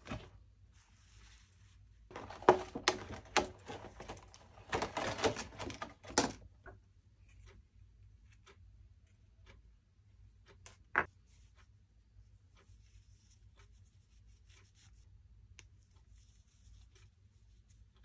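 Hands handling a vintage Action Man figure's small cloth and webbing kit: bursts of cloth and webbing rustling in the first six seconds or so, then one sharp click near the middle, followed by faint small clicks and taps of plastic and metal parts.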